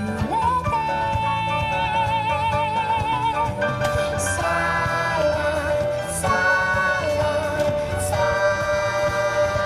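Dance song playing: a sung melody with vibrato over a backing track with a steady beat.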